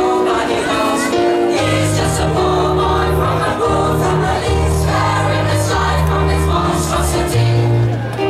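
A large choir singing sustained notes in harmony, amplified through a stage PA, accompanied on keyboard; low bass notes come in about a second and a half in and move in steps under the voices.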